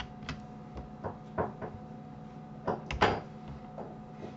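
Computer keyboard and mouse clicking: about eight scattered short taps, the loudest a close pair about three seconds in, over a faint steady hum.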